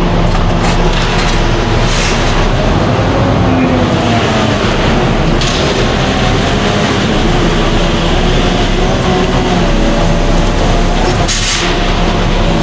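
Concrete mixer truck's engine running steadily during the pour, with faint voices underneath.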